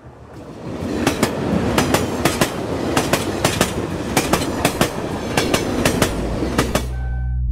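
Train wheels running over rail joints: a steady rumble with a rhythmic clickety-clack of paired clicks. It fades in at the start and cuts off near the end.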